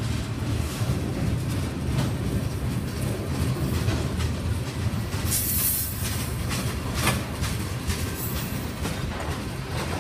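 Freight train's tank cars and autorack cars rolling past close by: a steady rumble of steel wheels on rail with scattered clicks, and a few brief high hisses about halfway through.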